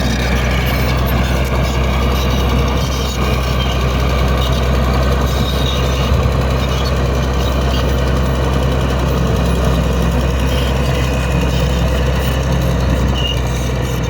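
Bulldozer's heavy diesel engine running steadily at a constant low drone.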